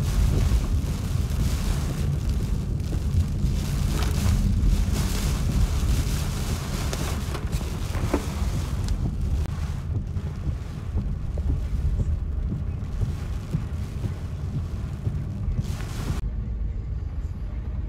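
Tropical-storm wind gusting and buffeting the microphone: a heavy, unsteady low rumble with a hiss over it. About 16 seconds in, the hiss cuts off abruptly and a lower rumble carries on.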